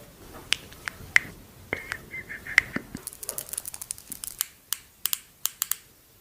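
Makeup containers and packaging being handled: sharp taps and clicks, a few spaced ones at first, then from about three seconds in a quicker run of crisp, high clicks.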